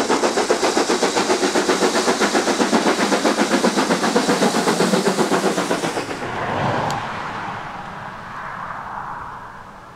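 The BR Standard Class 7 Pacific steam locomotive 70000 Britannia working hard, its exhaust beats coming fast and even. About six seconds in the beats fade out and a fainter rumble trails away.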